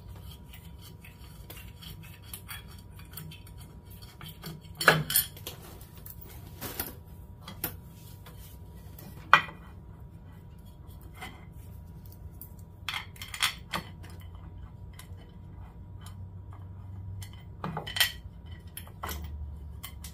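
Metal clinks and knocks of bolts and engine-mount parts being handled while an engine and CVT are shifted into position. There are scattered light clicks throughout, with sharper knocks about five and nine seconds in and again around thirteen and eighteen seconds.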